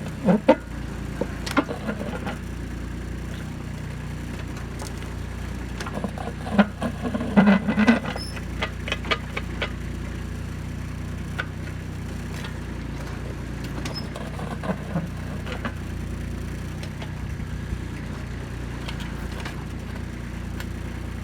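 Kubota B2630 compact tractor's diesel engine running steadily, with scattered clanks and scrapes of the backhoe working rock and dirt, a dense cluster of them about a third of the way in.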